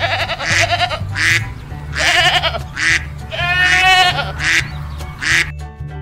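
Background music with a run of about half a dozen short animal-call sound effects laid over it. The longest call, about three and a half seconds in, wavers in pitch.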